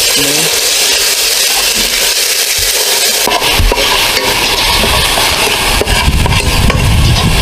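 Chopped aromatics sizzling as they fry in oil in a pot, stirred with a ladle. From about three seconds in, a low rumble joins.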